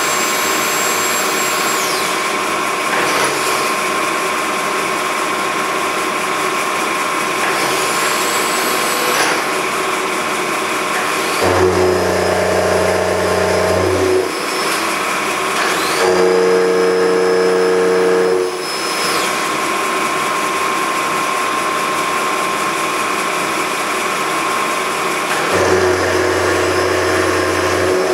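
Vertical milling machine running, its end mill cutting a slot in a metal part held in a vise, with a steady whine throughout. A deeper motor hum switches on three times for two or three seconds each, about eleven, sixteen and twenty-five seconds in.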